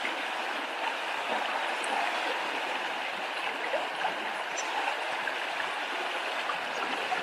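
Shallow river running over a stony bed: a steady rushing ripple of water.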